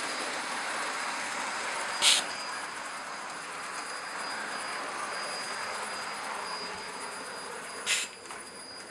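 Hornby live-steam model locomotive of the Flying Scotsman running slowly on its track: a steady hiss of steam and running gear, with two brief louder hisses, one about two seconds in and one near the end.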